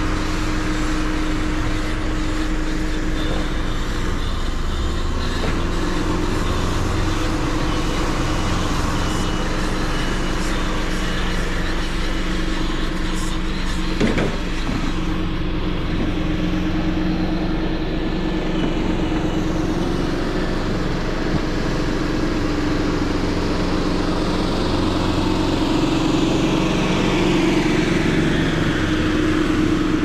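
Farm tractor's engine running steadily as it clears snow, louder near the end as the tractor comes closer. A single sharp knock about halfway through.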